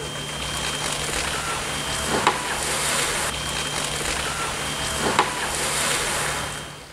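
Cable wakeboard tow system running: a steady mechanical hum with a faint high whine, and two sharp clicks about three seconds apart.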